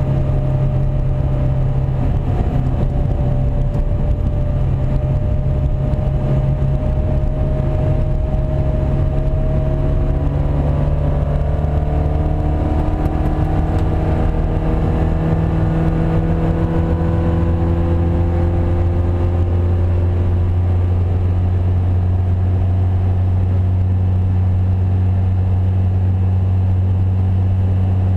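Classic race car engine running hard at speed, heard from inside the cabin, with the engine note shifting slowly in pitch and a steady drop to a lower pitch about two-thirds of the way through.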